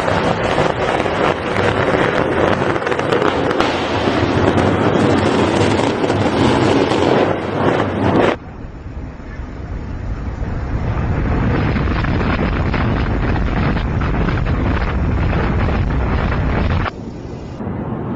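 Rumble and crackle of building demolitions and their rolling dust clouds, loud and noisy, with wind buffeting the microphone. The sound cuts off abruptly twice as one demolition clip gives way to another.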